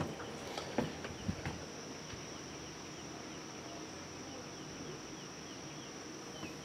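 Outdoor background of insects trilling: a steady high-pitched drone with faint short chirps repeating over it. A few light knocks in the first second and a half.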